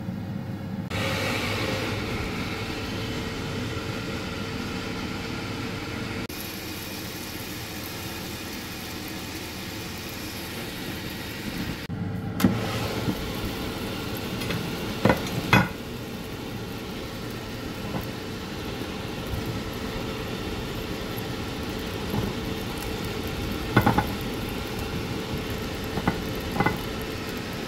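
Philips XXL air fryer running with a steady fan whir and hum. In the second half come a few sharp clicks and knocks as its basket is opened and handled, two close together about halfway through and two more near the end.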